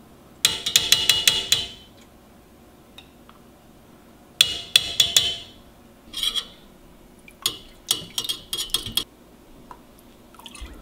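Spoon clinking and scraping rapidly against a stainless steel pot in four short bouts, as chicken bouillon is spooned in and stirred.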